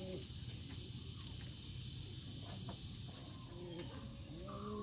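Domestic pigeons in the coop cooing, low rising-and-falling coos twice near the end, over a steady high hiss.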